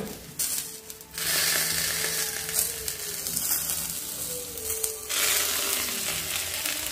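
Ragi and drumstick-leaf adai sizzling on a hot dosa griddle over low flame as the banana leaf it was pressed under is peeled off. The sizzle starts about a second in, dips briefly near the end and picks up again.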